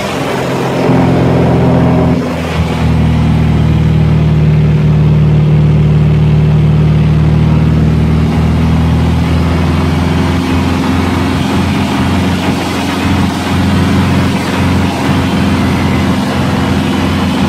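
Piston engine and propeller of a Van's RV light aircraft, a steady loud drone heard inside the cockpit during aerobatic manoeuvres, its tone shifting slightly about halfway through.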